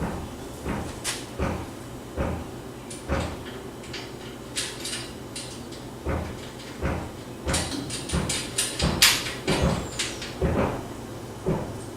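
Irregular clanks and knocks of a treestand's metal side rail and bolts being handled as the rail is lined up with the platform's bolt holes and the bolts are fed through, busiest and loudest near the end.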